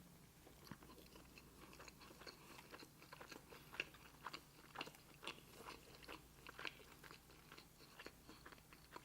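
Faint close-miked chewing: soft mouth clicks and small crunches coming irregularly, most frequent in the middle of the stretch.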